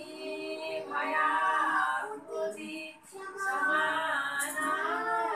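Women's voices singing a devotional chant together, in melodic phrases of a second or two with short breaks between them and a longer held phrase in the second half.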